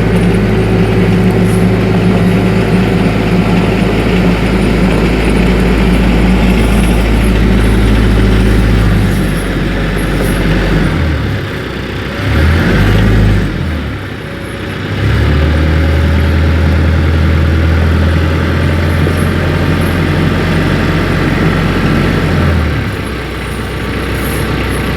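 TYM 474 compact tractor's diesel engine running steadily, its pitch shifting several times between about nine and fifteen seconds in, then steady again until it drops away near the end.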